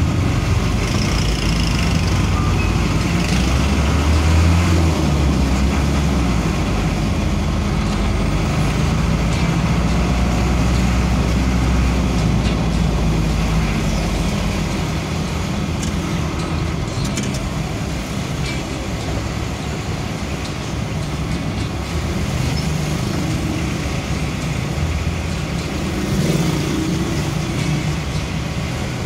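Motor vehicle engine running with road noise while driving slowly along a street: a steady low engine hum, a little louder in the first half, with a brief rise near the end.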